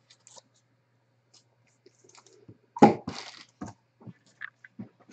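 Hands handling cards and packaging on a tabletop: scattered small clicks and rustles, with one sudden loud knock and a short crinkling rustle about three seconds in.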